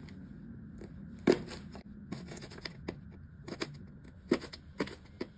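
Kitchen knife slicing red chillies on a plastic cutting board: an irregular series of short, sharp taps as the blade meets the board, the loudest about a second in.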